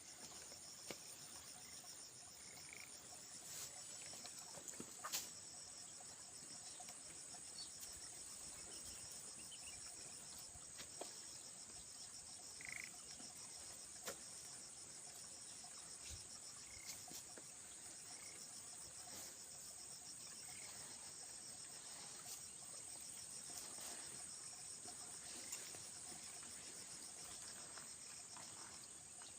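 Faint, steady chorus of insects in the field: a high, pulsing trill that does not let up. Scattered light clicks and taps sound over it, the sharpest about five seconds in.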